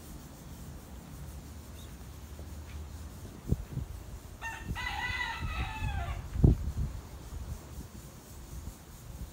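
A rooster crowing once, one call of about two seconds. A few low thumps come around it, the loudest just after the crow.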